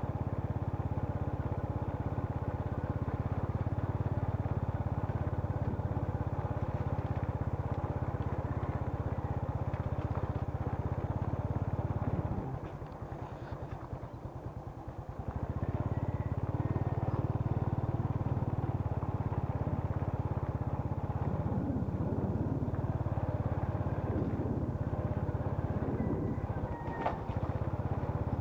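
Small motorcycle engine running at low speed. About halfway through the engine note drops for about three seconds, as when the throttle is eased, then picks up again.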